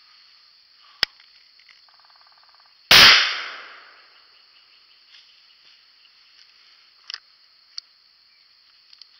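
.410 shotgun fired once about three seconds in, the blast dying away over about a second through the woods. A sharp click comes about a second in and a few small clicks follow the shot, over a steady high insect drone.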